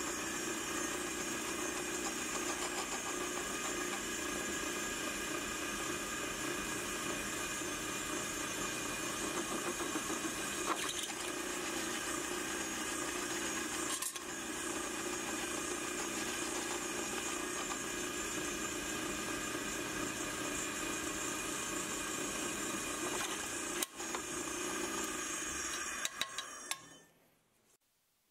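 Drill press motor running steadily while its twist bit drills through a steel carpenter's framing square. It stops about a second before the end.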